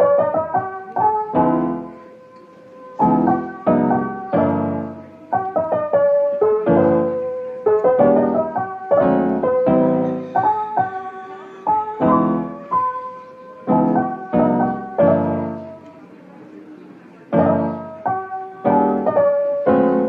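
Background piano music: a melody of struck notes, each ringing and fading.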